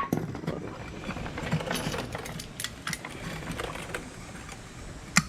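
Hammer striking the front axle shaft's universal joint to drive a bearing cap out of the yoke: one hard metallic blow at the start, lighter irregular metal clicks and taps in between, and another sharp blow near the end.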